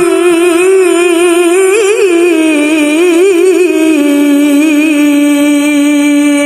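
A woman reciting the Quran in melodic tilawah style, drawing out one long vowel: quick ornamental turns in the melody, then about four seconds in it settles on a slightly lower, steady held note.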